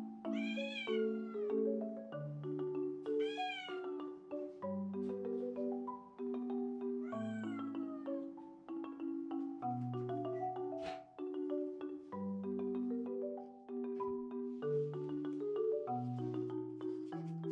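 Scottish Straight cat meowing three times, each meow rising then falling in pitch, over background marimba music.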